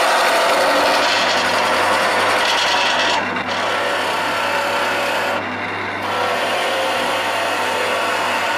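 Wood lathe running while a turning tool cuts a square wooden blank down to round: a continuous coarse cutting noise over the steady hum of the lathe. The cutting eases off briefly about three seconds in and again about five and a half seconds in, as the tool is lifted from the wood.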